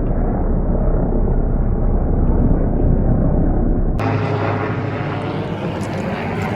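An engine running steadily. About four seconds in the sound changes abruptly to a brighter engine noise with a steady low hum and scattered light clicks.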